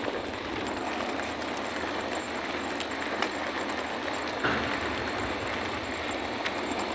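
Small wheels of a rolling suitcase rumbling steadily over rough pavement as it is pulled along, with a few light knocks from bumps and joints.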